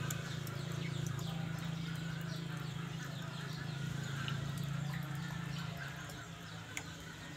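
Whole pig turning on a rotisserie spit over charcoal: a steady low hum with light, rhythmic clacking from the spit. The hum eases a little near the end.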